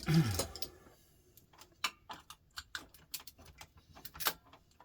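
Irregular small clicks and ticks of hands and tools working on printer parts, as gold contact tabs are worked off. A short falling vocal murmur right at the start.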